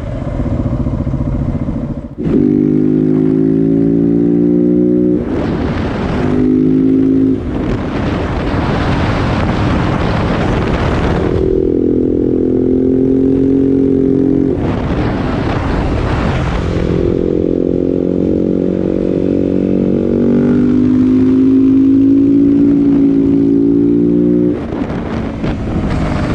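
KTM 690 SMC R's single-cylinder engine through a LeoVince exhaust, ridden under way: the pitch climbs, then drops at each gear change, several times over. Gusts of wind noise hit the microphone now and then.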